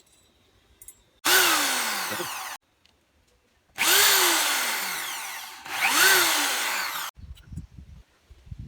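Electric drill run in three bursts of one to two seconds, its whine dropping in pitch during each run and cutting off sharply when the trigger is released. A few low knocks follow near the end.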